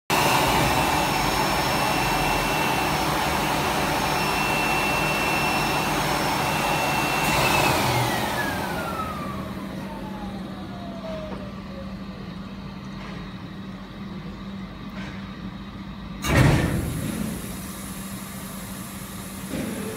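DPF flash-cleaning machine running on a diesel particulate filter: a loud steady rushing noise with a high whine, which winds down about seven seconds in as the whine falls steadily in pitch and the rush fades. A low hum remains, with one loud thump near the end.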